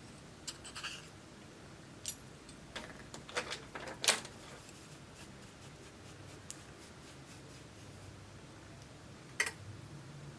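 Handling sounds of slime and makeup: scattered light clicks and taps, with a sharper tap about four seconds in and another near the end.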